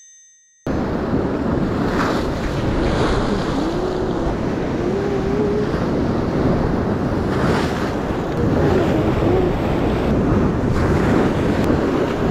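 Sea waves breaking on a rocky shore, with strong wind buffeting the microphone; the noise starts abruptly about a second in, out of near silence, and stays loud and steady.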